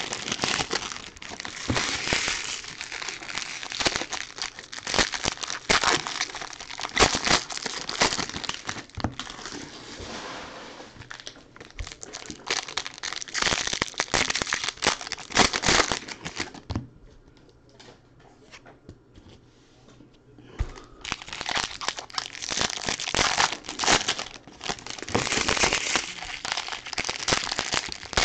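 Foil card-pack wrappers crinkling and tearing as jumbo packs of baseball cards are ripped open and the cards pulled out, with a quieter spell of about three seconds a little past halfway.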